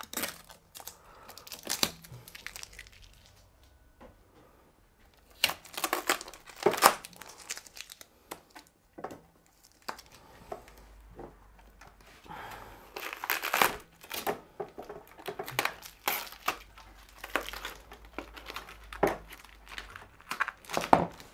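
Plastic packing and tape being peeled off and crumpled by hand: irregular crinkles and short rips, with a quiet pause about four seconds in.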